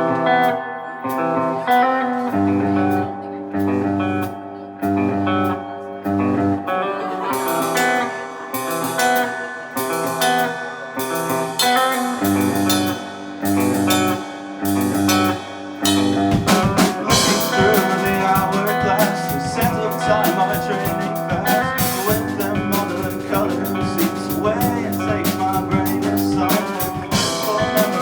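Rock band playing: a repeating guitar and bass riff with light drumming, then the full drum kit and band come in about halfway through, louder and denser.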